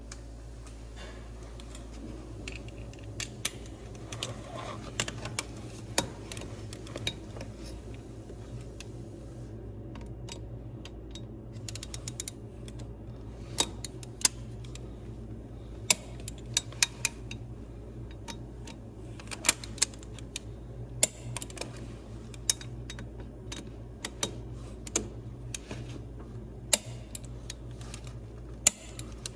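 Scattered sharp metallic clicks and taps of hand tools on bolts and metal parts while a drive coupler dampener is being fitted, some coming in quick little runs, over a steady low hum.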